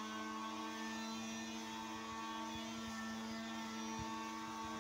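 A steady droning hum made of several even, unchanging tones, with a few faint low knocks.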